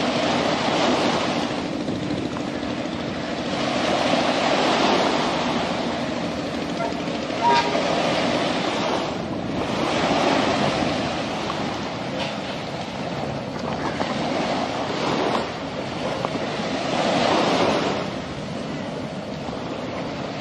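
Sea waves washing in surges every few seconds, with wind on the microphone and the low rumble of a train crossing the bridge. A single click comes about seven and a half seconds in.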